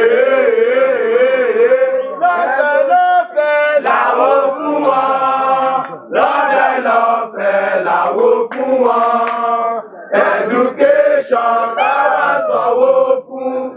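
A group of protesters chanting a protest song together, in sung phrases broken by short pauses about six and ten seconds in.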